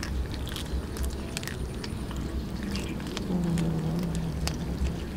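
Cats chewing raw fish from a metal tray: wet smacking and sharp clicks of teeth on flesh and bone. A low, drawn-out hum lasts about a second, starting around three seconds in.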